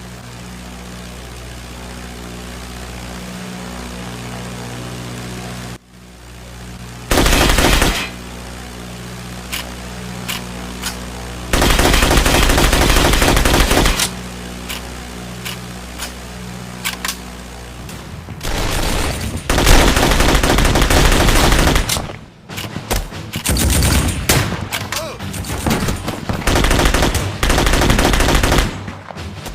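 Type 100 submachine gun (8mm Nambu) firing: a short automatic burst about seven seconds in, a few single shots, a long burst of about two seconds, then several more bursts through the second half. A steady low drone with a few steady tones runs underneath for the first several seconds.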